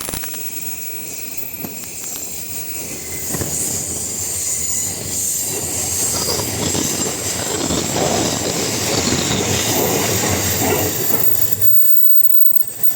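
A train moving off from a stop past a level crossing, its wheels running over the rails. The noise builds to its loudest about eight to eleven seconds in, then eases near the end.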